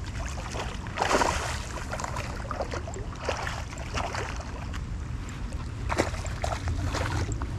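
Hooked peacock bass splashing at the water's surface as it is reeled in to the bank, with sharp splashes about a second in and again near six seconds, over a steady low rumble.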